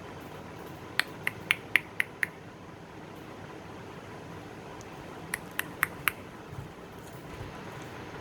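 Two quick runs of sharp clicks over a steady low hiss: six in a row about a second in, at about four a second, then four more a little past the middle.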